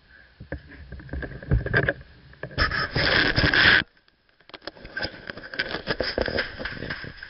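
Handling noise on a body-worn camera in a waterproof housing: muffled rubbing and knocking, with a loud scraping rush about three seconds in that cuts off suddenly, then a run of quick clicks and taps.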